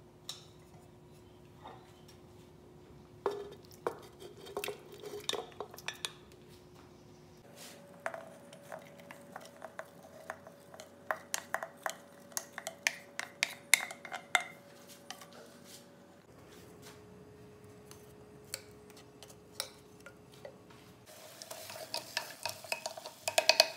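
A wooden spoon scrapes and taps, with many irregular clicks, against a ceramic plate and a clay cooking pot as chopped onion is pushed into the pot and stirred. Near the end the onions start sizzling in the hot oil under quick stirring.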